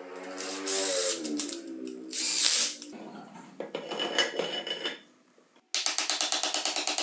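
Cordless electric screwdriver running as it drives a screw into a cover plate, its motor pitch sagging as the screw seats. Clattering of metal machine parts being handled follows. Music comes in abruptly near the end.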